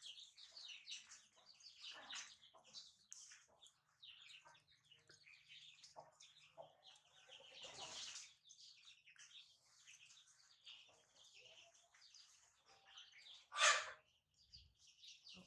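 Many small birds chirping in the background, short high chirps coming one after another, with one brief, louder sharp sound near the end.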